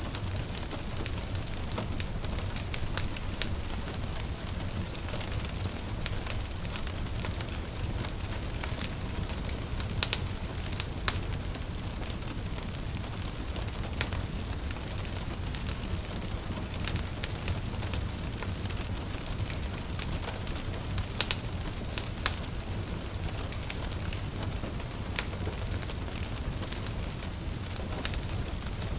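Wood fire crackling with frequent sharp pops over a steady hiss of rain, with a low steady rumble underneath. A few pops stand out louder, about ten seconds in and again about twenty-one seconds in.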